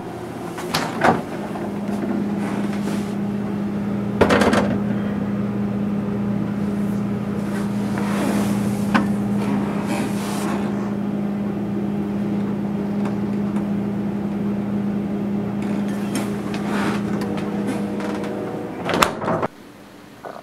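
Refrigerator running with a steady low hum while its door is open and bottles are handled on the shelf. Clicks and knocks of the door and glass come through it, the loudest about four seconds in and another just before the end. The hum cuts off suddenly near the end.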